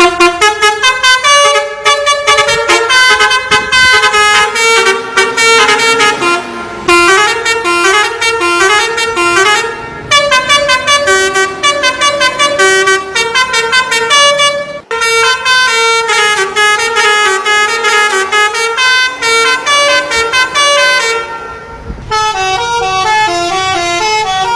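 Multi-tone musical bus horn of the Indonesian 'telolet' kind, playing a fast melody of short stepped notes, sometimes two or more at once. The tune comes in several phrases with brief breaks between them.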